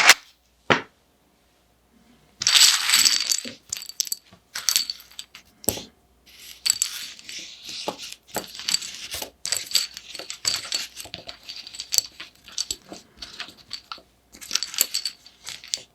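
Mechanical keyboard switches and keycaps being pulled and handled: a couple of clicks, then from about two seconds in a busy run of sharp plastic clicks and metallic clinking as switches clatter together like coins.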